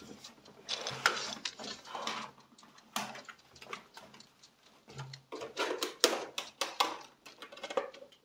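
Irregular clicks, knocks and rustling, like small objects being handled, with a few louder knocks about one, three and six seconds in.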